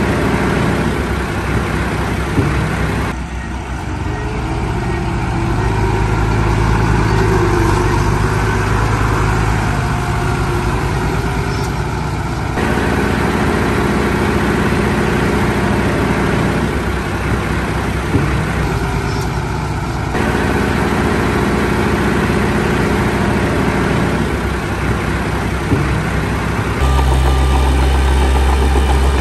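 Heavy diesel engines of a bulldozer and dump trucks running steadily, the engine sound changing abruptly a few times.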